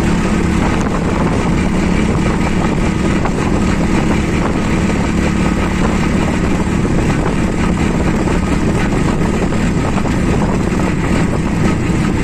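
TVS Radeon's 110cc single-cylinder air-cooled engine running steadily as the motorcycle rides along the highway. The engine is on the last of its half-litre of fuel and has begun to jerk.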